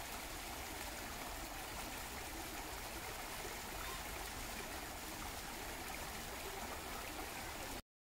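Shallow stream running over rocks, a steady rushing, burbling flow of water. It cuts off suddenly just before the end.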